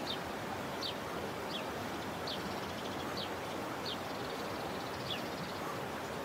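A bird calling over and over, a short high falling chirp about every three-quarters of a second, over a steady rushing background noise.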